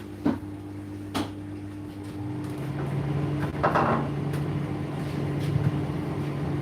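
Kitchen sounds: two sharp knocks in the first second or so, then a short clatter about halfway through, like cupboard doors and dishes being handled. A steady low hum runs underneath and shifts up in pitch about two seconds in.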